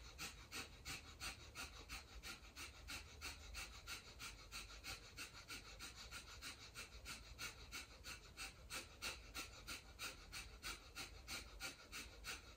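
Kapalabhati (Breath of Fire) breathing: quick, forceful exhales through the nose in an even, rapid rhythm of about two to three a second, each a short, faint hiss of air, with the inhales coming passively between them.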